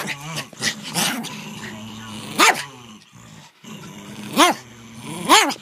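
Chinese crested dog growling in play, with three short barks in the second half.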